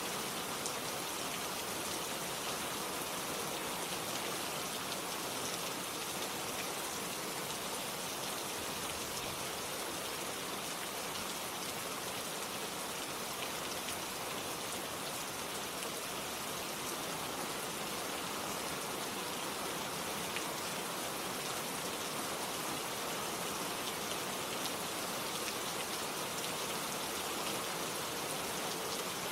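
Steady rain falling, an even hiss of drops on a surface with a few sharper drop ticks scattered through it.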